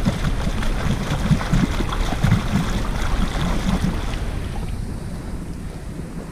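Wind buffeting the microphone with irregular rustling and crackling, heaviest for the first four seconds and then easing to a steadier hiss.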